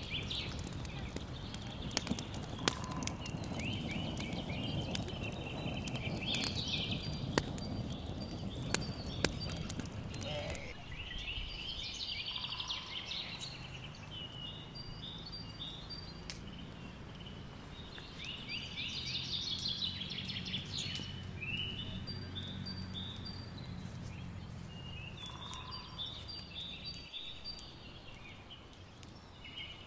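Wood fire crackling, with sharp pops and cracks from the burning planks, while a songbird sings short repeated phrases in the background. About ten seconds in the fire sound stops and the birdsong goes on over a quieter outdoor background.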